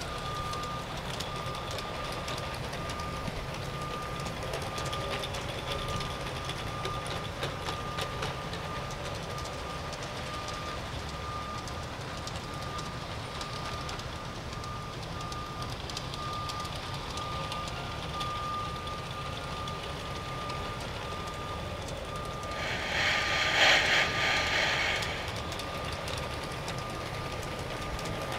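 G-scale model trains running on a deck layout, a low steady rumble under an evenly repeating high electronic beep. About three-quarters of the way through, a loud hiss lasts about two seconds.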